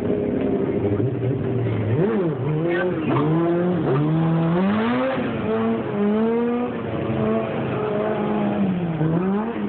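Motorcycle engine revving up and down as the bike rides around, its pitch rising and falling several times, with a steadier stretch of held throttle near the middle.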